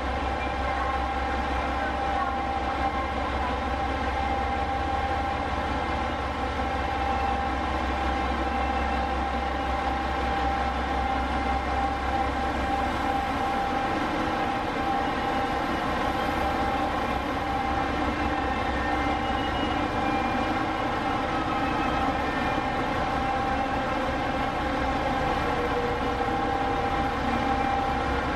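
Steady drone of diesel railcar engines running at low speed or idling, made of several held tones, as a diesel train creeps in to a platform. A low rumble beneath it drops away about halfway through.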